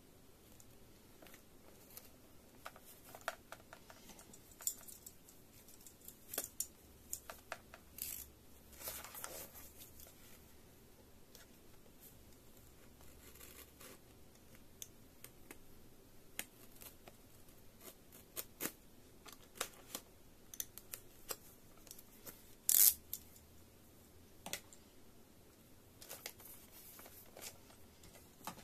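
A utility knife scraping and slitting the seal sticker on a cardboard earphone box, with the box being handled: scattered small scratches, taps and rustles. There is a longer scraping stretch about eight seconds in, and the loudest sharp scrape comes about three-quarters of the way through.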